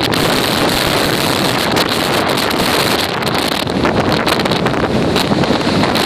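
Hurricane wind blowing hard across the microphone, a loud, unbroken rush of wind noise.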